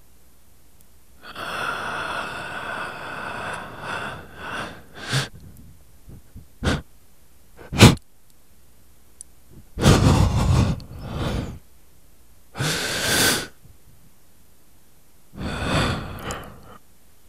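Sparse experimental electronic track: irregular bursts of hissing, wheezy noise, the first of them with a steady squealing tone, two sharp clicks in the middle, and short silences between the bursts.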